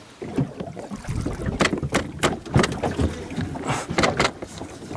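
Irregular knocks and slaps around a small boat drifting at sea: water slapping against the hull and loose gear knocking, with no engine running.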